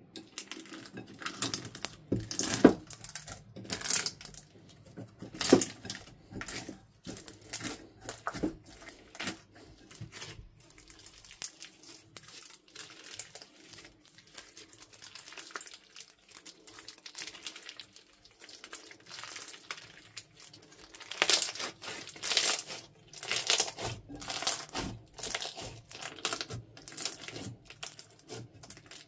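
Clear slime packed with small red beads being kneaded, pressed and stretched by hand: an irregular run of crackling clicks and squelches. The clicks come thickest in bursts a couple of seconds in and again about two thirds of the way through.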